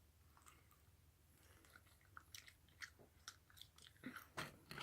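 Faint, wet, sticky clicks and squishes of soft, melted slime being handled and kneaded. They grow busier and louder toward the end.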